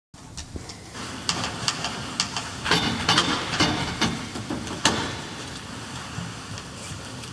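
Scattered sharp clicks and knocks over a steady hiss, after a brief dropout right at the start: handling noise as a handbell choir gets ready to play, with no bell tones yet.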